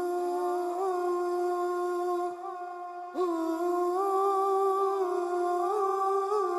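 Background music: a slow melody of long held notes with small turns. It drops away briefly a little after two seconds and comes back about three seconds in.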